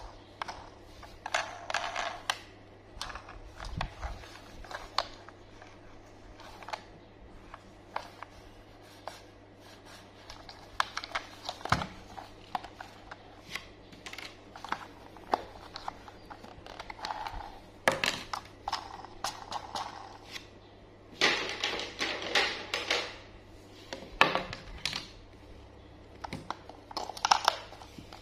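Gloved hands handling a battery-powered plastic toy train: irregular plastic clicks, taps and short rustles as the battery cover comes off and AA batteries are fitted into the compartment.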